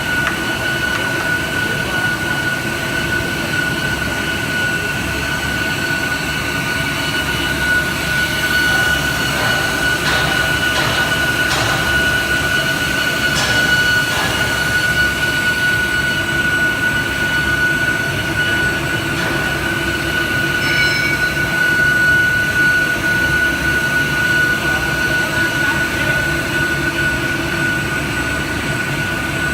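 Five-layer bubble wrap laminating machine running steadily: a constant mechanical drone with a steady high whine over it and a few faint clicks midway.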